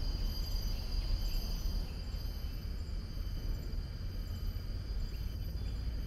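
Insects droning steadily in the forest, a continuous high-pitched trill, over a constant low rumble.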